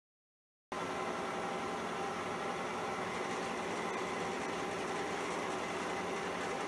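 Milling machine running steadily with an end mill taking a cut along a gib strip held in the vise. The sound starts suddenly about a second in, out of dead silence.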